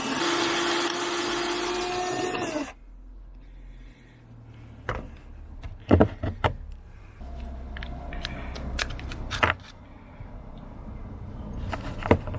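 Power drill boring out the rivet of a metal crocodile clip: the motor runs at a steady pitch and stops about two and a half seconds in. Then come scattered clicks and knocks as the metal clip is handled and taken apart.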